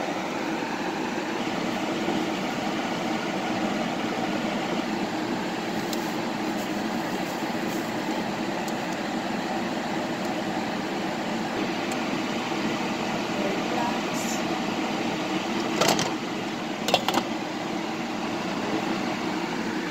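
Steady rushing noise like a running fan or kitchen appliance, with two short clicks about three-quarters of the way through.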